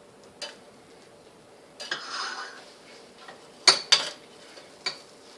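Kitchen utensils and dishes clinking: a light tap, a short scrape about two seconds in, then two sharp clinks near four seconds and one more near five.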